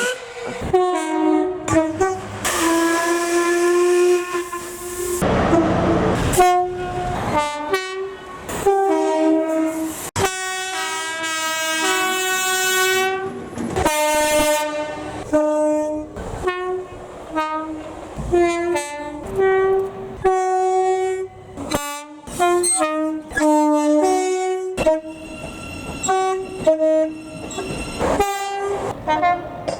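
A train's two-tone horn sounding in a long run of short blasts that alternate between a high and a low note, with a few longer held notes. Noise from the train running on the rails lies underneath.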